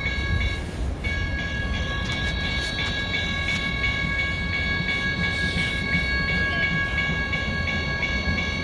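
Hudson-Bergen Light Rail train approaching the platform, with a steady high-pitched squeal with several overtones over a low rumble; the squeal breaks off briefly about a second in, then holds.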